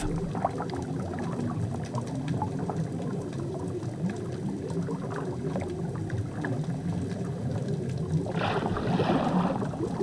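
Water sounds picked up underwater near the surface: a steady wash of water noise with small scattered clicks, and a louder rush of noise about eight seconds in that lasts over a second.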